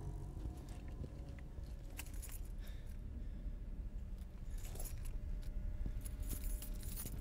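A ring of keys jingling in short, scattered clinks over a low, steady rumble.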